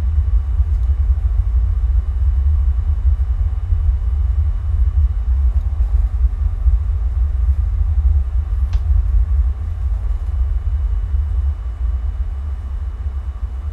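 Steady low rumble on a home security camera recording's audio, with a faint click about nine seconds in.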